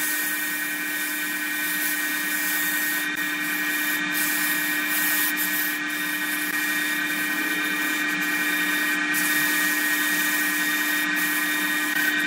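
Wood lathe running at a steady speed with a constant motor whine, while sandpaper held by hand against the spinning jackfruit-wood vase rubs with a continuous hiss.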